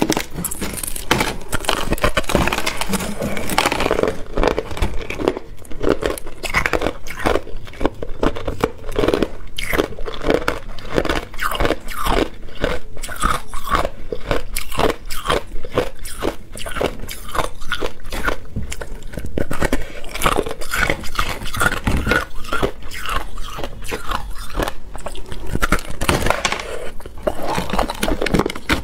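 Person biting and chewing a frozen slab of packed crushed ice: a dense, unbroken run of sharp crunches, many a second, as the ice cracks between the teeth.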